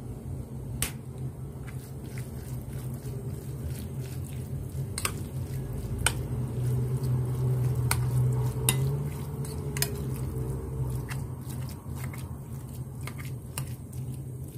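A metal spoon stirring and mashing crumbled tofu in a glass bowl, with many sharp clicks of the spoon against the glass, over a steady low hum.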